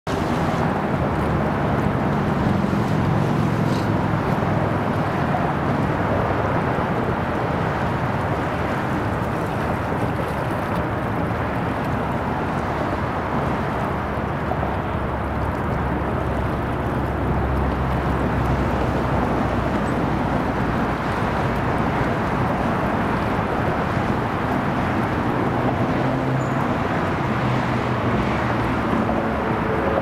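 Steady waterfront ambience: wind on the microphone and moving water, under a low, continuous rumble of distant engines.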